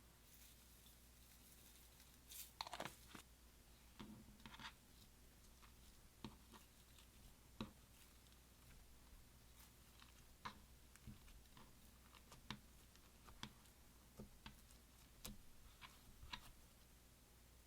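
Faint, sticky clicks and crackles of slime being mixed, scattered irregularly, with a louder cluster about two and a half seconds in.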